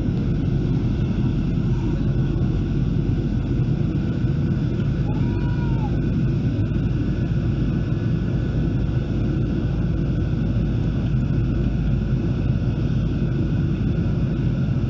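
Steady low drone in the cabin of a Boeing 737-800 in flight: its CFM56-7B turbofan engines and the air rushing past the fuselage, heard from a window seat over the wing.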